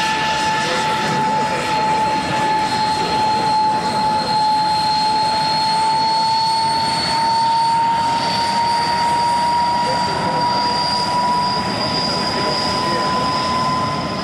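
De Havilland Vampire's jet engine running as the aircraft taxies, a loud high whine that slowly rises in pitch over a rushing roar.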